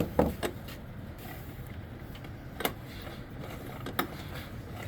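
A few sharp clicks and knocks from hand work on a Honda TRX125 engine under rebuild: two just after the start, then one near the middle and one a little over a second later, over a faint steady hum.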